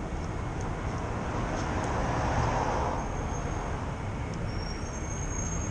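Steady street traffic noise, with a vehicle passing and swelling louder about two to three seconds in.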